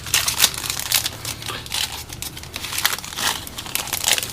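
Plastic wrapper of a baseball card pack crinkling in the hands, a dense run of irregular crackles as it is handled and opened.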